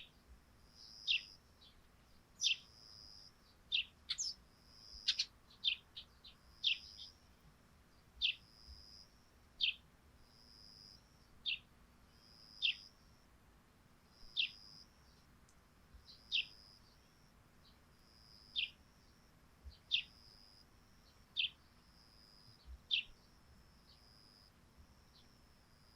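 Eurasian tree sparrows chirping: short, high chirps that each drop quickly in pitch, repeated every second or two and stopping a few seconds before the end.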